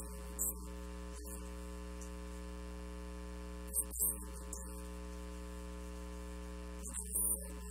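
Steady electrical mains hum and buzz, a stack of unchanging tones, broken by brief crackles of noise about half a second, four seconds and seven seconds in.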